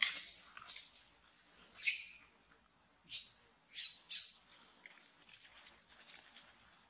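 A series of short, high-pitched chirping calls, about six in all and spaced irregularly, the loudest coming about two, three and four seconds in.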